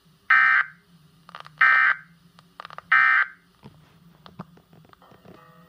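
Weather radio sending the end-of-message code of an emergency alert: three short bursts of buzzing digital data tones, about 1.3 seconds apart, marking the end of the severe thunderstorm warning.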